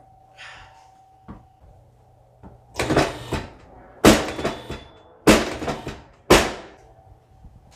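Four loud, sudden thumps about a second apart, from a chiropractic adjustment on a treatment table.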